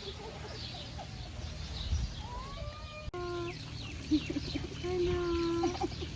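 Chickens calling, a few drawn-out calls from about halfway in, over the high chirping of small birds.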